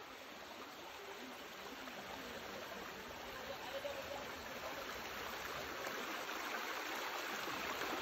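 Shallow rocky stream rushing over stones, a steady wash of water that grows louder toward the end as the rapids come nearer.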